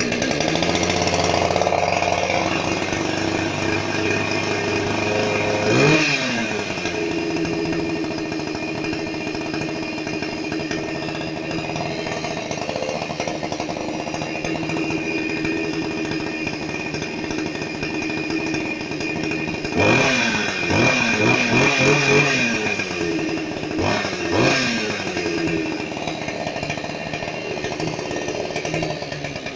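Ruris 367 two-stroke chainsaw running just after a cold start at about −4 °C. It idles steadily and is revved briefly about six seconds in, then a few more times around twenty and twenty-four seconds.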